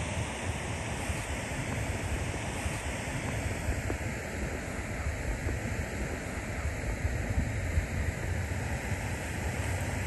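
Wind buffeting the microphone: a steady rushing noise that rises and falls in gusts, with a heavy low rumble.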